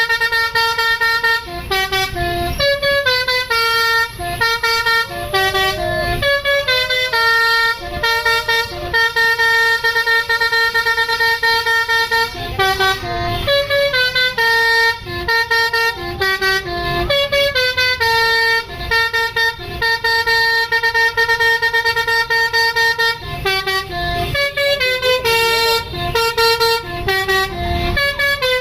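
Basuri telolet bus horn playing a tune: a quick run of short and held horn notes that step up and down in pitch, over a low rumble.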